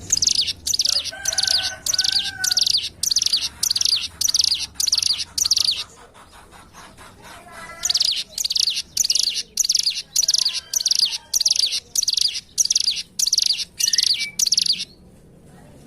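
Ciblek gunung (a prinia) singing: short, high, rapid note bursts repeated about twice a second, with a pause of about two seconds just after the middle.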